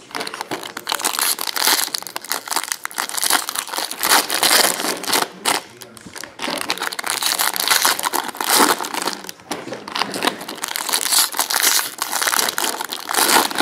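Foil wrappers of 2016 Bowman Draft Jumbo baseball card packs being torn open and crumpled by hand: a run of crinkling with brief pauses.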